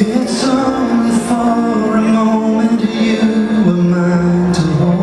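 Music with a singing voice, long held notes stepping from one pitch to the next.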